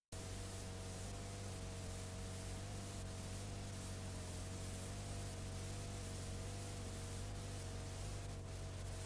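Steady hiss and low hum from playback of a blank stretch of old videotape, with two faint steady whines in the middle range; it cuts in abruptly out of dead silence at the very start.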